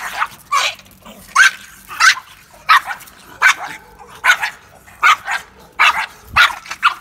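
Pekingese dogs barking sharply and repeatedly, about two barks a second with uneven spacing, while they squabble over a piece of bread.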